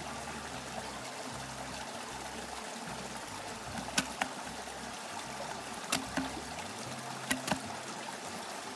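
Steady rushing of a stream, with a few sharp clicks about four, six and seven seconds in.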